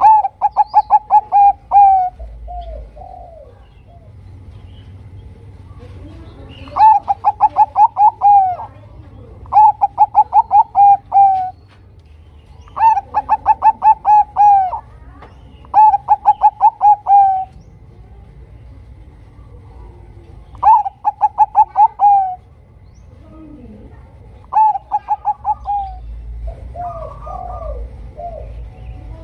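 Zebra dove (perkutut, Bangkok type) singing: seven bursts of quick staccato coos, each burst about a second and a half long, with pauses of one to five seconds between them and softer, lower coos in some of the gaps.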